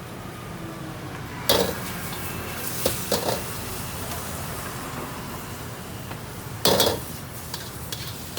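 Metal wok spatula striking and scraping against a wok while fried rice is stir-fried. The loudest clangs come about a second and a half in, a few around three seconds and again near seven seconds, over a steady sizzle.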